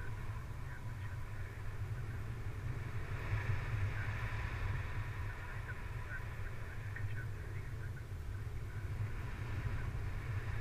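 Steady wind buffeting the microphone of a camera carried on a paraglider in flight: a constant low rumble with a fainter hiss above it.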